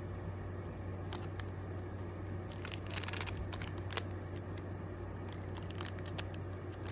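Small packaged items being handled and set down: scattered rustles and light clicks, with a busier patch of crinkling about three seconds in, over a steady low hum.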